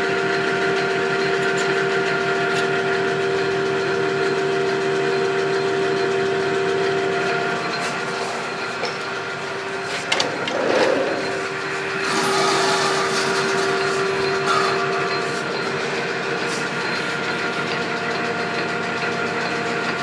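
Metal lathe running with a steady whine while turning a brass adapter. A few seconds of rougher noise come about halfway through.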